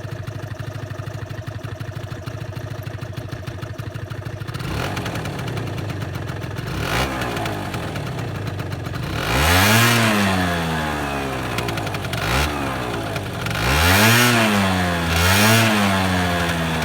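Aprilia SR50R scooter's 50cc two-stroke engine idling, then revved with throttle blips: a short one, then several rises in pitch that fall back to idle.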